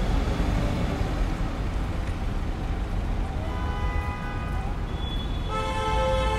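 Steady rumble of road traffic on a busy multi-lane city street. About three and a half seconds in, a held pitched tone made of several stacked notes rises over it, drops away, then comes back louder near the end.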